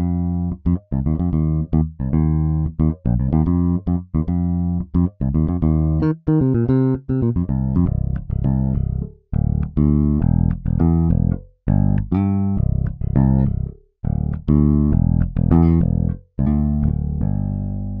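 EZbass virtual electric bass, on its Vintage preset, playing contemporary R&B MIDI bass grooves: a run of short, syncopated plucked notes. The pattern changes as new grooves start, and the last note rings on near the end.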